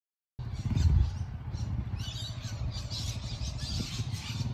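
Yamaha XT250 single-cylinder motorcycle engine running at a distance, a steady low rumble that starts abruptly about half a second in, with birds chirping.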